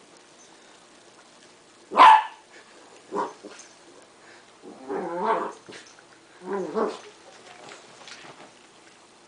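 West Highland White Terriers barking at play: one loud bark about two seconds in, then three quieter ones, the later two longer and rougher.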